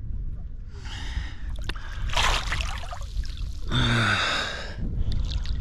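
A man gasping and breathing sharply, three heavy breaths with a short falling groan about four seconds in, as cold seawater trickles into his wetsuit. A steady low rumble runs underneath.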